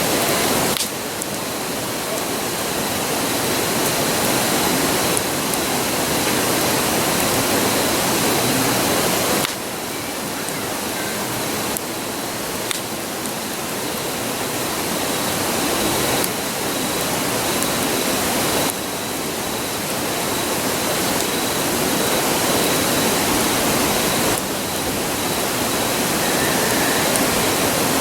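Steady rushing roar of a river, with a few faint pops from a wood campfire.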